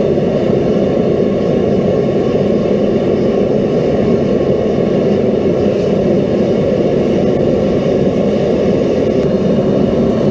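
Forge running with a steady, loud rushing noise while the saw-blade steel is heated for the oil quench.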